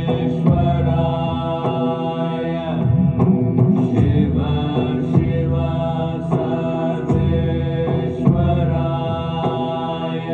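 Chanted mantra set to music: voices holding long, sustained notes in phrases of a second or two over a steady low drone.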